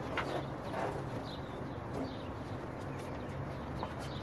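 A pickup truck's hood being lifted off and carried: a few faint knocks and handling sounds from the panel, with birds chirping faintly in the background.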